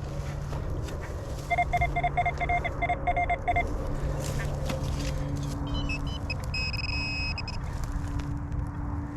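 XP Deus 2 metal detector giving target tones: a quick run of about nine short, low beeps, about four a second, as the coil sweeps over a target, then about six seconds in a few stepped tones and a higher, steady tone lasting about a second.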